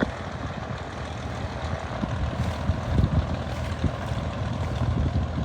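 Small propeller airplane's piston engine running: a low, steady drone.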